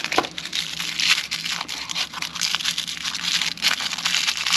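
Thin plastic packaging crinkling and crackling as hands handle and unwrap it: continuous irregular crackles.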